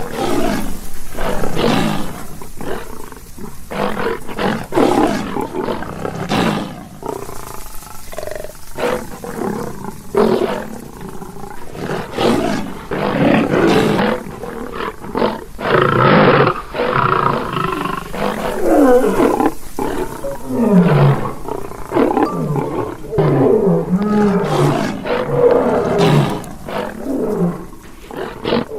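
Lion roaring repeatedly in a dense, continuous run of calls, with short falling grunts in the second half.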